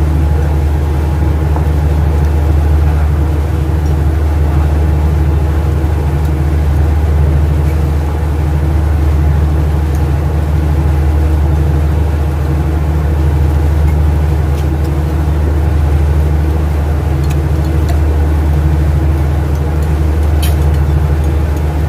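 Steady low drone of a ship's engines and machinery running, with no change in pitch or loudness.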